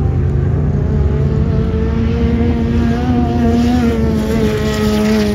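Sand rail's engine running at high revs, holding a nearly steady pitch with a slight waver.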